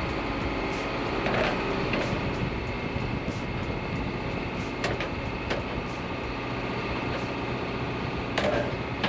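Isuzu NPS 4x4 truck driving, with steady engine and road noise and a few sharp knocks or rattles about a second and a half in, around five seconds in, and near the end.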